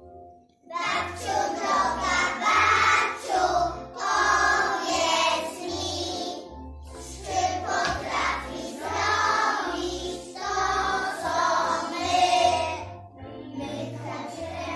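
A group of preschool children singing a song together in Polish over instrumental backing music with a bouncing bass line, starting after a brief pause about half a second in.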